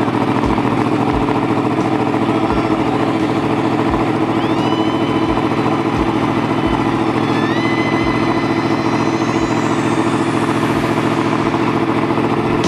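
Yamaha YZF-R1 crossplane inline-four idling steadily through a Toce T-Slash aftermarket exhaust, with a low pulse about twice a second.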